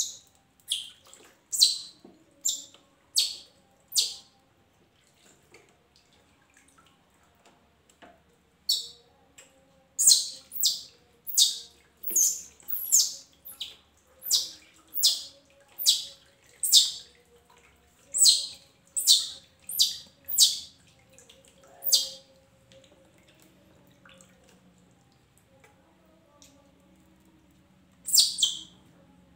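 Baby monkey giving short, shrill, high-pitched cries about once or twice a second while being washed in a tub of water. There is a run over the first few seconds, a longer run from about nine to twenty-two seconds, and one more cry near the end. Faint water splashing lies underneath.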